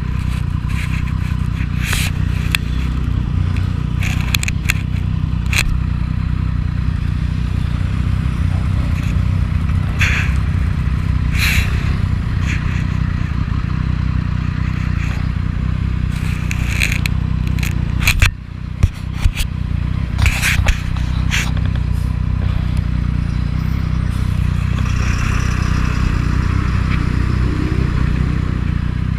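Triumph 675 inline three-cylinder motorcycle engine running at a steady pitch, with scattered short scraping and rustling noises on top. About eighteen seconds in there is a brief dip with a few sharp knocks.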